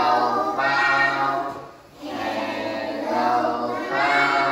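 A group of young children singing together in unison: two long, held sung phrases with a brief breath between them about two seconds in.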